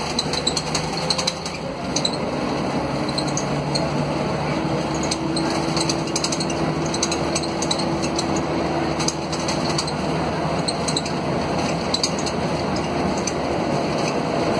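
Mercedes-Benz OM457LA straight-six turbodiesel engine of an O500 UA articulated bus running steadily as the bus drives, heard from inside the rear section near the engine. Fast small rattles from the bus body and windows run through the engine drone.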